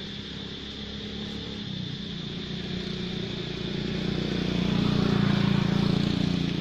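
A motor vehicle's engine passing by, growing louder to a peak about five seconds in and then fading.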